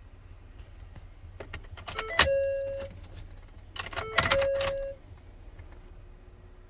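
Keys jangling and clicking, twice, each time ending in a short electronic chime tone. The two chimes come about two seconds apart.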